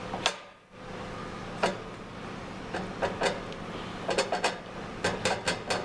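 Metal parts of a tyre-changer assist arm knocking and clinking as the shaft is pushed down into the arm and fitted, a few separate knocks and then quick runs of light taps in the second half. A steady low hum runs underneath.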